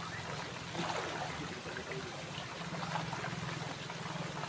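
Water running and trickling, over a steady low hum.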